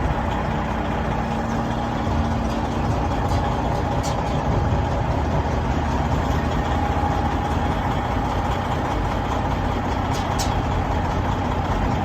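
Heavy diesel engines running steadily in a container rail yard, as a container-handling machine lifts a container off the train, with a constant high whine over the engine noise and a few faint clicks.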